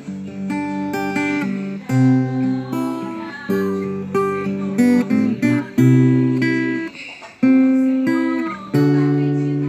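Tagima electro-acoustic guitar played solo: chords struck one after another and left to ring out, with dissonant harmonies and octave voicings.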